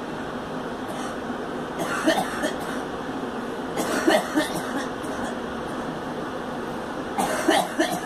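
A girl coughing in three short bouts of a few coughs each, about two, four and seven seconds in, over a steady background noise.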